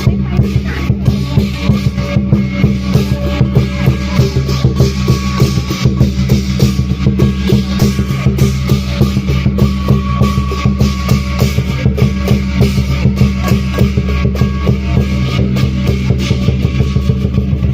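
Loud lion dance percussion music: a fast, steady drumbeat with crashing metal strokes, over a continuous low drone.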